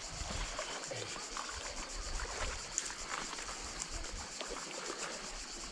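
Shallow river water splashing around a person's legs as he wades over a pebble bed, over the even hiss of the flowing river.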